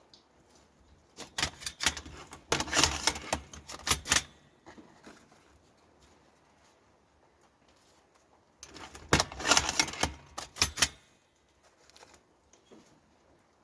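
Hand-operated mechanical cigarette rolling machine clattering as it is worked to roll a thick cigarette: two spells of rapid clicking and rattling, each about three seconds long, with a quiet gap between.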